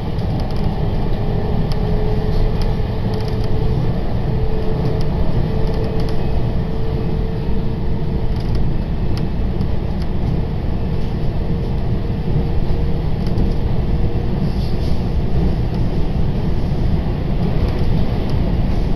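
Running noise inside a moving electric train car: a steady, loud rumble of wheels and running gear on the rails, with a faint hum that rises slightly in pitch over the first several seconds and then holds steady.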